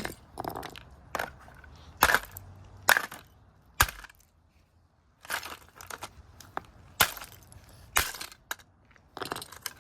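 Irregular sharp blows and crunching of a Timex radio alarm clock's casing and display being smashed apart, with a lull of about a second near the middle.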